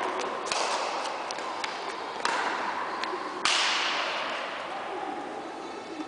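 Badminton rackets hitting a shuttlecock in a rally: three sharp hits spread over the first few seconds, each ringing on in the echo of a large sports hall, with lighter clicks between them.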